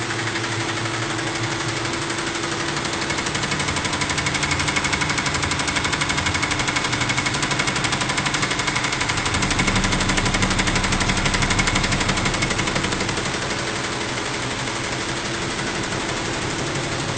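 Multi-head SWF embroidery machine stitching: a rapid, even clatter of needle strokes, a little louder midway.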